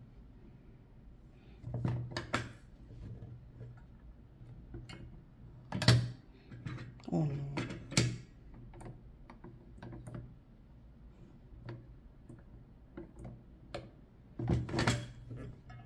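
Hand-operated button pin press being handled: scattered knocks and clacks of its plastic dies and base as they are turned and shifted by hand, the loudest a few seconds in and again near the end.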